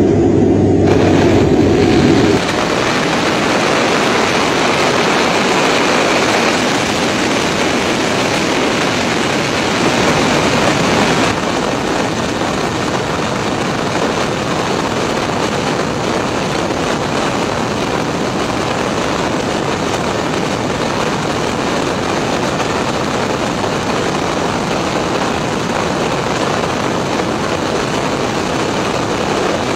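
Steady rushing noise of airflow and engines on an aircraft descending on final approach with its landing gear down. The noise shifts abruptly about two seconds in and again around eleven seconds.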